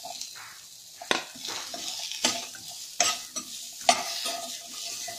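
Carrot and potato sticks sizzling in a hot stainless steel frying pan while a steel spoon stirs and scrapes them, clinking sharply on metal about four times.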